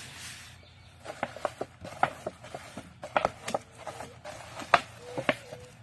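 Wet cement mortar being patted and spread over the cement-soaked cloth on the base of an upturned pot mould. It makes a run of irregular soft pats and clicks, a dozen or so, the loudest coming about three-quarters of the way through.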